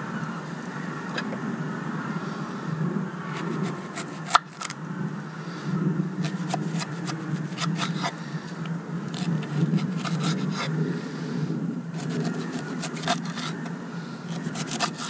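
Kitchen knife cutting and chopping vegetables on a wooden cutting board: clusters of quick, sharp taps of the blade on the board, with one louder knock about four seconds in, over a steady low rushing background.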